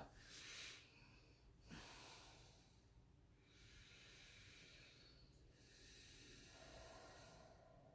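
Faint, slow breathing: several soft breaths in and out, each lasting a second or two, during a held stretch.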